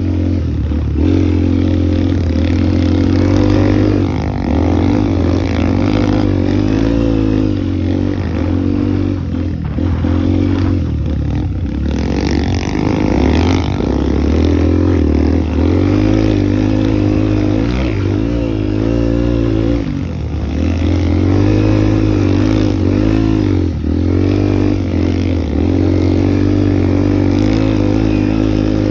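Single-cylinder motorcycle engine under way, its note rising under throttle and dropping again several times as the bike accelerates and changes gear.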